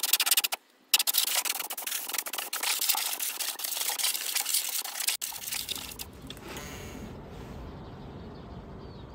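Compressed-air blow gun blasting dust out of an old TV chassis: a few short hissing bursts, then a long, crackly blast of about four seconds. About five seconds in, it cuts off to a quieter low rumble.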